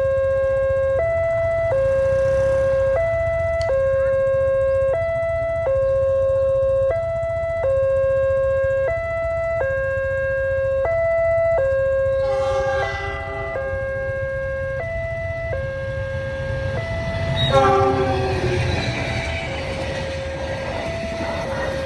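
Railway level-crossing warning alarm, alternating between two tones about once a second. A train horn sounds about halfway through and again, louder, near the end, followed by the rumble of the train arriving at the crossing.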